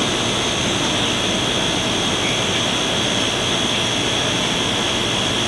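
Crane's engine and hydraulics running steadily while lifting a load, with a steady high whine over the engine noise.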